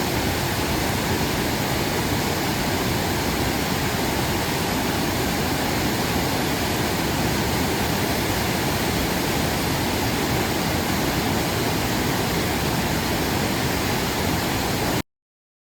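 Rushing river water, a steady full noise with no let-up, that cuts off abruptly near the end.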